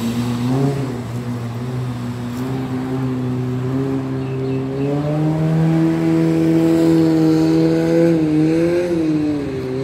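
A combustion engine running steadily nearby, its pitch rising about halfway through and dipping again near the end.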